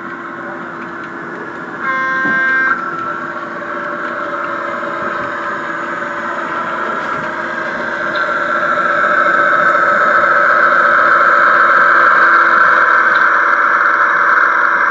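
Model Budd RDC railcar running toward the listener, a steady hum that grows louder over the second half as it approaches. About two seconds in, a short horn blast sounds for under a second.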